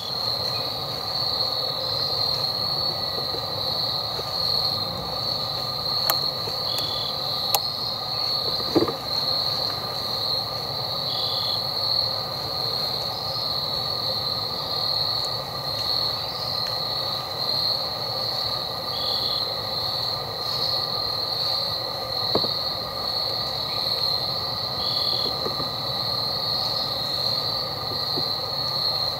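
Insects droning in chorus: a steady, high-pitched pulsing drone with several lower steady drones beneath it and a short chirp every few seconds. A few faint clicks come in, then a soft knock about nine seconds in.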